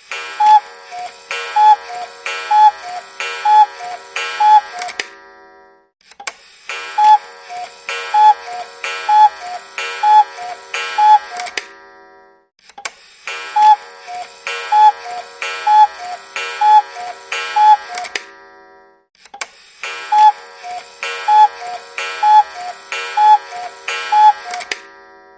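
Cuckoo alarm clock going off: repeated two-note 'cu-ckoo' calls, a higher note then a lower one, about one a second. The calls come in runs of about five, each run followed by a short pause of about a second before the next.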